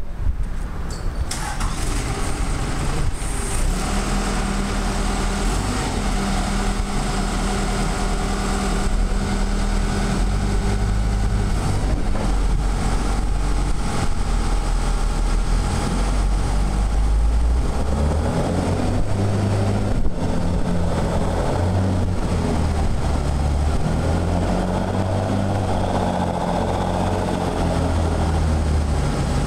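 Large diesel forklift engine running steadily, then revving harder from about the middle as the hydraulics lift the long forks high up the mast.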